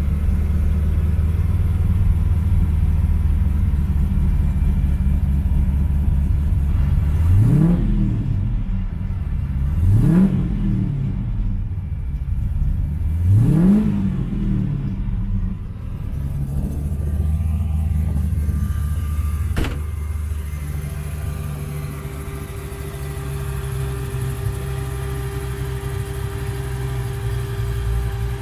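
ZZ4 350 small-block V8 running through a stainless dual exhaust with X-pipe and mufflers, heard from inside the cab. It idles steadily and is revved three times a few seconds apart, each rev rising quickly and dropping back to idle.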